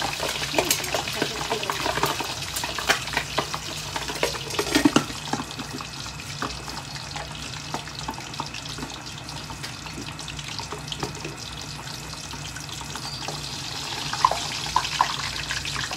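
Pork belly frying in hot oil in a pan: a steady sizzle full of sharp pops and crackles. The crackles are thickest in the first five seconds, and the sizzle is softer and more even in the middle, with a lid on the pan. The crackling picks up again near the end.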